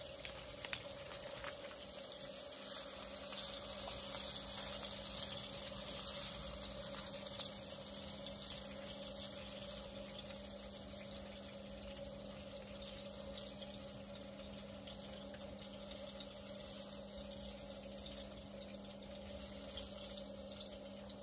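Catfish frying in hot oil in a pan on a butane camp stove: a steady sizzle, loudest a few seconds in and easing off as the pieces are lifted out, with a faint steady low hum underneath.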